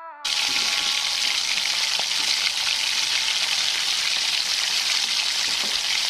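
Steady rain, an even hiss that starts abruptly about a quarter-second in as the song cuts off.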